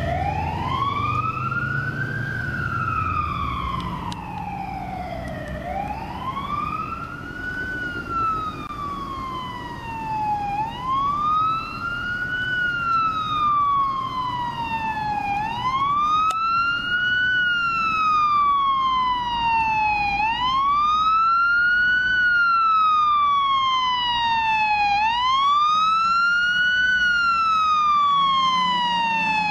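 Fire engine's siren on a wail, rising quickly and falling slowly about every five seconds, growing louder as the truck approaches.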